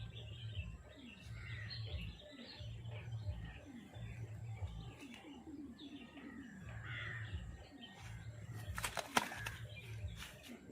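Birds chirping and crows cawing, over a low pulse that repeats about every second and a half, with a sharp knock about nine seconds in.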